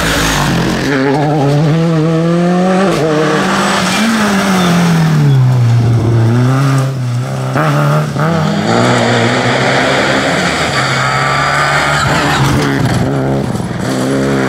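Rally cars at full speed, a Ford Fiesta and then Renault Clios, their engines revving hard and rising and falling in pitch through gear changes and lifts. Tyres scrabble and slide on loose gravel.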